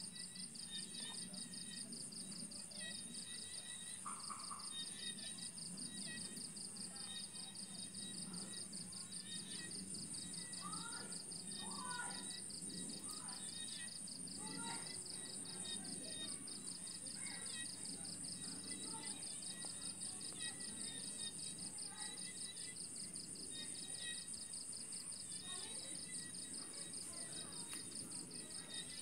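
Insects trilling steadily in two high, finely pulsing bands, with scattered short chirps and a low steady hum underneath.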